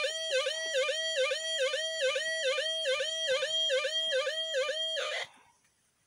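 Electronic alarm sounding a loud warbling tone that dips and returns about two and a half times a second, cut off suddenly about five seconds in.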